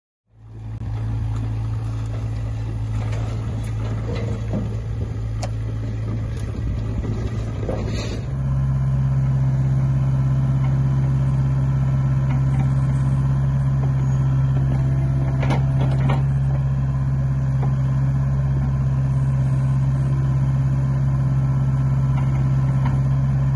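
Kubota mini excavator's diesel engine running steadily while digging, its note stepping up higher and louder about eight seconds in. A few knocks sound over it.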